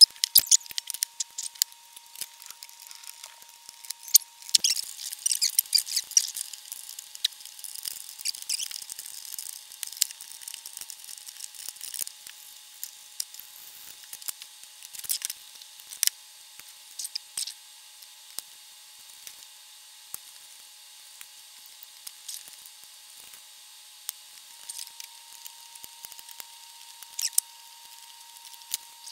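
Irregular small clicks, snips and scrapes of hand tools and wires against a bare metal chassis as hand-soldered wiring is cut out with flush cutters. The clicking is densest from about four to twelve seconds in and sparser after.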